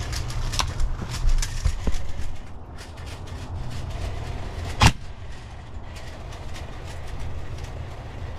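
A single sharp airsoft rifle shot about five seconds in, the loudest sound, with a few short clicks and knocks of gear handling in the first two seconds, over a steady low rumble.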